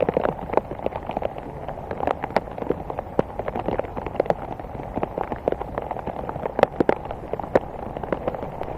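Rain falling, with many irregular drops ticking sharply on nearby surfaces over a steady wash of rain.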